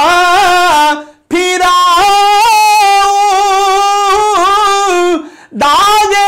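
A man singing an Urdu naat solo, without accompaniment, drawing out long held notes with wavering ornaments. He breaks off briefly for breath about a second in and again about five seconds in.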